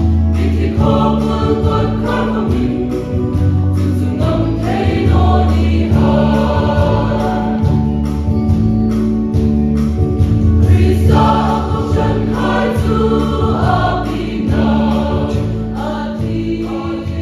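Choir singing a gospel song with instrumental accompaniment, a steady low note held underneath; the music grows quieter near the end.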